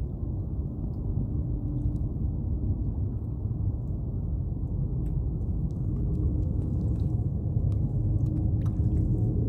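Steady low rumble of wind buffeting the microphone and water slapping around a kayak, with a faint steady hum and a few light clicks.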